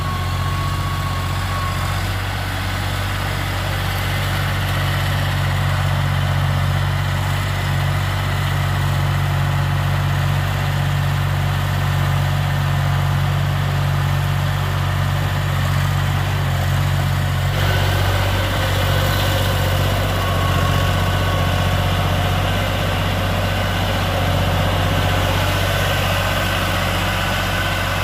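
Engine of a three-wheel sugarcane grapple loader running steadily with a low hum. The sound grows brighter about two-thirds of the way in.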